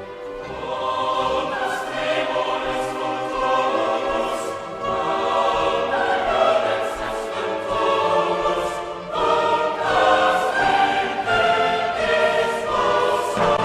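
Choral music with orchestra: voices sing sustained notes that change every second or so.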